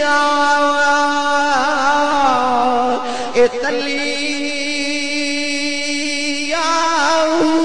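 A man singing a Punjabi devotional kalam into a microphone, holding long, wavering notes that rise and fall. There is a short, loud pop about three and a half seconds in.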